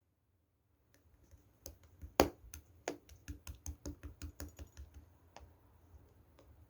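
Slime being pressed and squeezed by hand, giving a quick run of sharp clicks and pops, several a second. It starts about a second in, is loudest about two seconds in, and thins out near the end.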